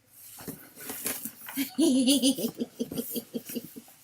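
A woman laughing and giggling with excitement: a high, wavering squeal about two seconds in, then a run of quick, short laugh pulses.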